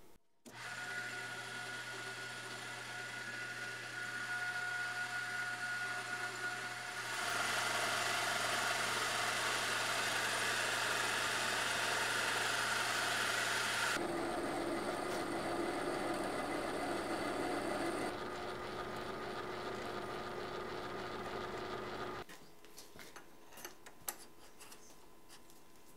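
Small metal lathe running with a steady motor hum while a tool turns down a metal shaft, the cutting noise loudest for several seconds in the middle. The lathe stops suddenly about 22 seconds in, followed by a few light clicks of the part being handled.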